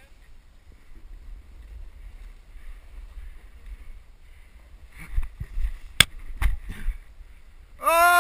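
Low rushing rumble of snowboards sliding through powder snow, with a few sharp knocks around the middle. Near the end, a loud yell whose pitch rises and falls.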